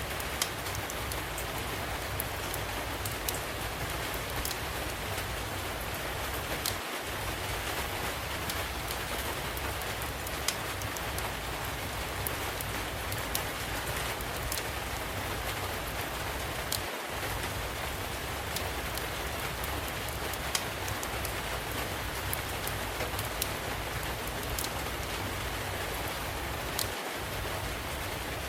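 Steady rain with scattered sharp pops from a crackling wood fire. The low rumble under the rain drops out briefly about every ten seconds.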